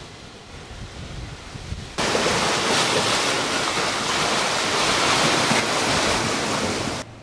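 Seawater surging among rocks, with wind buffeting the microphone. A quieter rush jumps suddenly to a loud, even rush about two seconds in, which cuts off abruptly just before the end.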